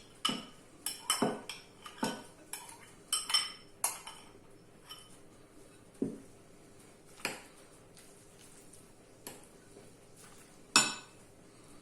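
Cutlery clinking and knocking against dishes: a quick run of sharp clinks for the first few seconds, then a few single ones, the loudest near the end.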